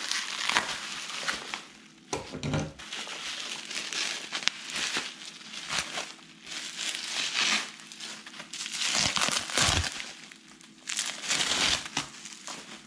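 Plastic bubble wrap crinkling and rustling as it is pulled off a hardback book, in several bouts with short pauses between and a few sharp crackles.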